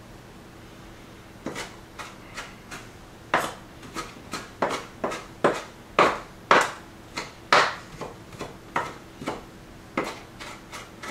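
Kitchen knife chopping and mincing fresh pepperweed greens on a wooden cutting board: a run of sharp, irregular knocks, about two to three a second, starting about a second and a half in.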